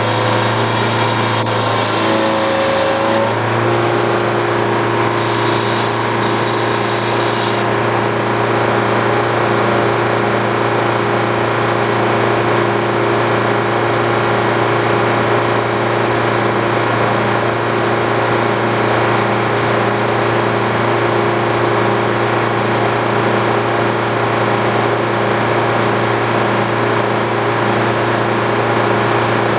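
An old Frick sawmill running steadily under power with a constant machine hum. Its pitch dips briefly about two to three seconds in, then settles and holds.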